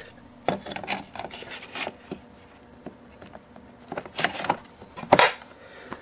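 Plastic clicks, knocks and rustling from handling the dirt cup of a Hoover Elite Rewind bagless upright vacuum. The loudest knocks come about four and five seconds in.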